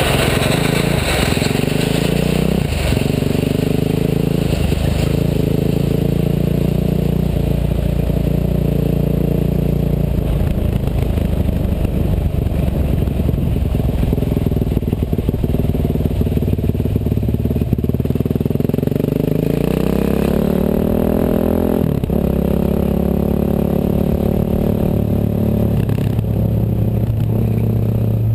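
Bulldozer engine running steadily, its revs climbing about two-thirds of the way through, with a few sharp knocks.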